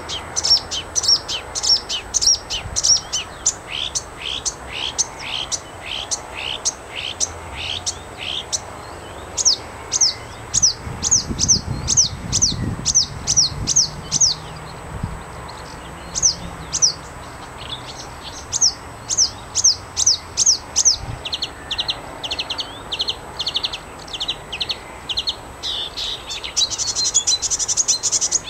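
Marsh warbler singing: long runs of sharp, quickly repeated down-slurred whistled notes, about three a second, switching between note types and breaking into a faster, denser jumble near the end.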